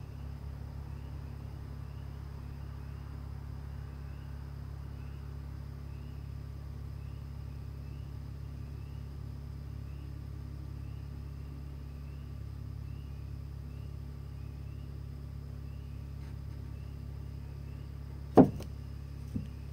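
Steady low outdoor rumble with faint chirps repeating about once a second. Near the end comes one sharp, loud knock, then a smaller knock about a second later.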